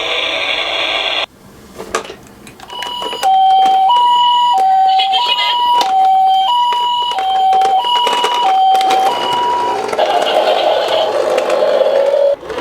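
Two-tone hi-lo ambulance siren from a toy ambulance, switching between a higher and a lower steady pitch about once a cycle per second. It starts about three seconds in and stops near ten seconds. A few clicks come before it, and a steady rushing noise follows it.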